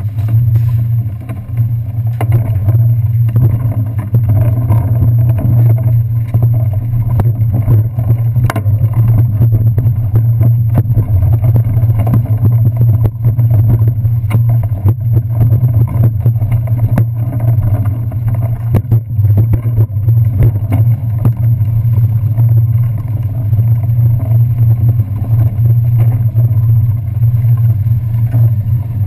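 A loud, steady low rumble with frequent small clicks and rattles, picked up through a handlebar-mounted camera as the bicycle is wheeled along at walking pace.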